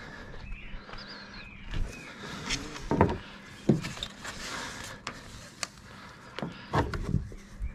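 Tie-down straps and cam buckles being handled and pulled over a plastic kayak hull on a car roof: scattered knocks and rustling, with the loudest knocks about three seconds in and near the end.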